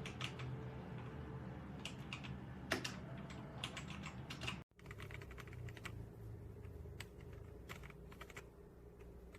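Faint, irregular keystrokes typed on a ZIYOU K3 mechanical keyboard with red linear switches, with a brief break about halfway through.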